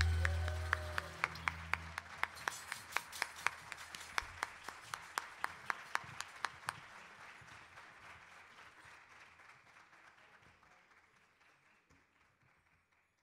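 A small audience applauding as the last low note of the song fades out in the first couple of seconds. One person's claps stand out, evenly spaced at about three a second, for the first several seconds, then the applause dies away.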